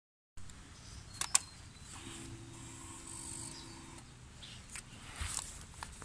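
Two sharp clicks about a second in, then a faint, steady electric hum for about two seconds that stops abruptly: the fuel pump of a 2019 Honda NC750X priming at ignition-on, before the engine is started.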